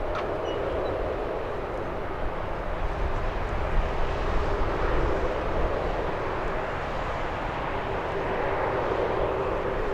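Jet airliner's engines during takeoff, a steady noise with a faint held tone underneath.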